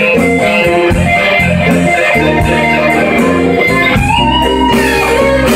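Live electric blues band playing: electric guitars, bass guitar and drums. About four seconds in, a high note bends upward and is held.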